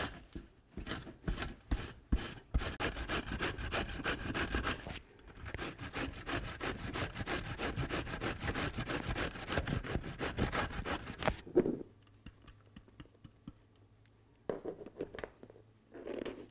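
A zucchini being grated by hand on a stainless steel box grater over a plastic cutting board: rapid, repeated rasping strokes that stop about eleven seconds in. Two brief, softer scrapes follow near the end.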